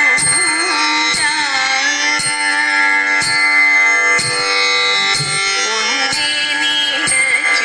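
Thiruvathira song accompanying the dance: a Carnatic-style sung melody over sustained instrumental accompaniment, with a sharp beat about once a second that keeps time for the dancers' hand claps.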